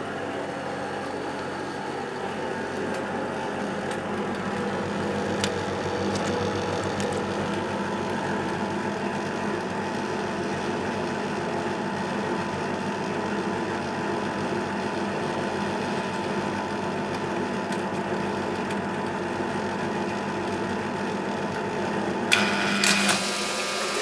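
Miele Automatic 416 washing machine running with a steady mechanical hum. About 22 seconds in there is a sudden loud clack from the machine, and a new, higher whine starts.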